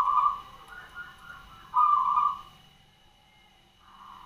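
Caged local zebra dove (perkutut) cooing its song. One loud phrase of trilling coos comes at the start and another about two seconds in, with fainter notes between.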